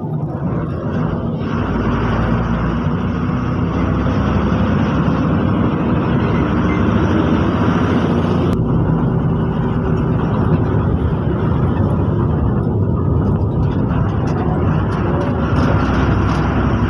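A KSRTC bus under way: steady engine and road noise, with the engine note picking up slightly about a second and a half in.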